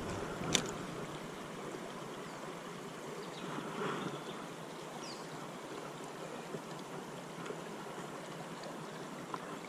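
Steady rush of a shallow river flowing past the bank, with one sharp click about half a second in.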